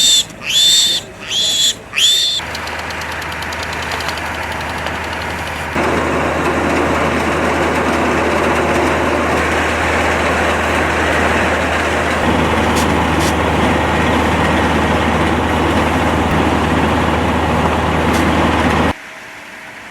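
Piglets squealing, a few loud high cries about a second apart in the first two seconds. Then a vehicle engine runs steadily with a rushing hiss over it, and the hiss gets louder about six seconds in.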